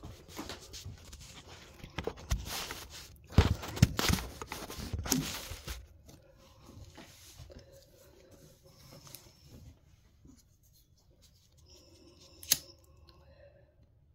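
Handling noise as a phone camera is moved and set down: rustling, scraping and a few knocks for the first six seconds, then quieter. About twelve seconds in comes a single sharp click, a pocket lighter being struck to light a dragon's blood sage bundle.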